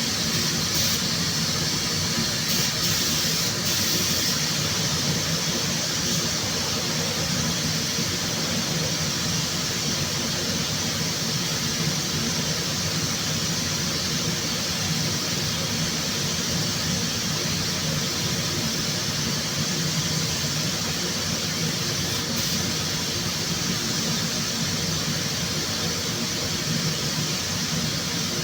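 Steady, unbroken hiss of compressed air with a high, squealing edge over a faint low hum.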